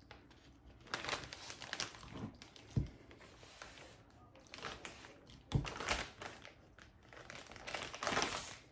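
Plastic Ziploc bags crinkling and rustling as they are handled and filled with caramelized onions, with a couple of dull knocks.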